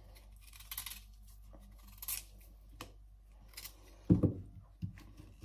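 A kitchen knife cutting and peeling a cassava root, heard as a series of short scraping cuts, with a louder thump about four seconds in.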